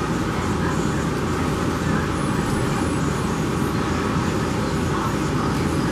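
Steady rushing noise, heaviest in the low range, running evenly without a break.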